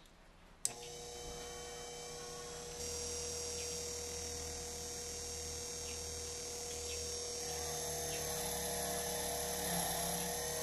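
Small bench polisher switched on with a click, its motor then running with a steady hum as the wire wheel brush spins up. From about seven seconds in the wire wheel scrubs a small rusty metal ring held against it, adding a rougher hiss over the hum.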